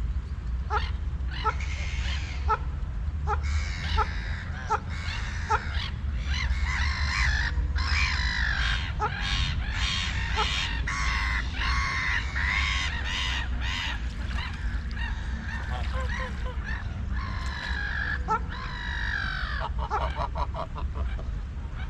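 Ducks calling, with runs of harsh, honking quacks through the middle and again near the end. In the first few seconds a short call repeats about once a second, and a steady low rumble runs underneath.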